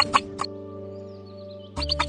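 Background music: sustained held chords, with a few sharp clicks near the start that stop, then return with a heavier bass near the end.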